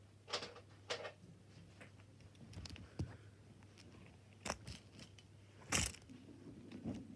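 Handling noise: scattered rustles, crinkles and light knocks as toys are picked up and moved close to the microphone, the loudest about six seconds in.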